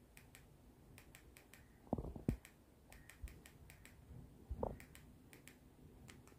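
Faint, quick clicks of remote-control buttons pressed over and over to page through a satellite receiver's channel list, roughly three a second, with a few duller knocks in between.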